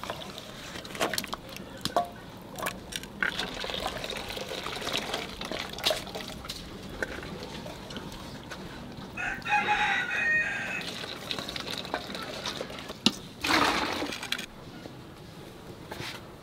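Hands swishing cut data stalks in water in a steel bowl, with splashes and light clinks against the metal. About ten seconds in a rooster crows once, and a louder splash of water comes near the end.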